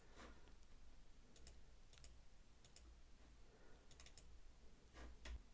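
Near silence with a few faint computer mouse clicks, some in quick pairs.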